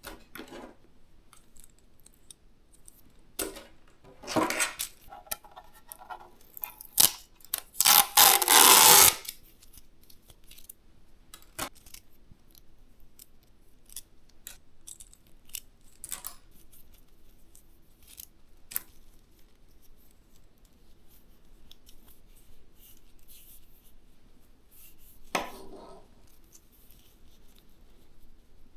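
Handling noises from a PC build in progress during power-supply installation: scattered clicks and rustles of parts and cables, with a loud rasping rustle about eight seconds in and another shorter one near the end.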